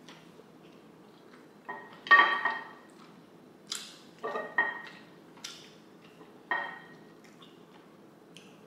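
Eating utensils clinking against a ceramic dish, seven or eight separate clinks, each ringing briefly, with the loudest about two seconds in.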